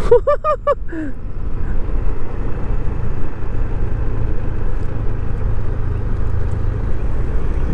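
Steady low rumble of wind buffeting and road and engine noise while riding a Yamaha NMAX 155 scooter.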